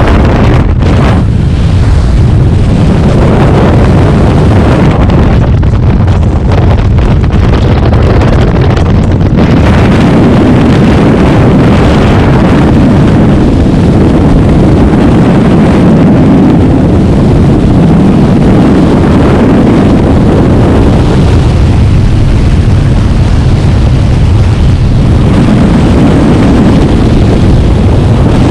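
Freefall wind noise on a camera microphone: a loud, steady rushing and buffeting that continues without a break.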